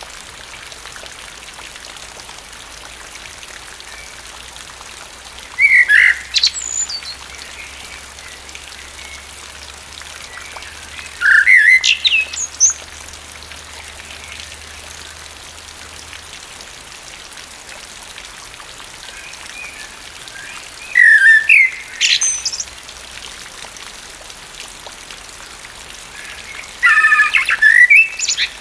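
Steady rain falling with a common blackbird singing four short, loud song phrases spread through, each a brief warble that climbs into high notes.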